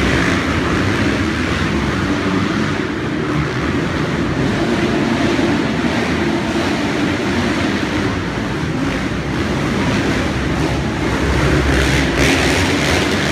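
Several motocross dirt bikes racing around an indoor arenacross track, their engines revving together in one continuous loud drone that echoes in the hall and swells a little near the end.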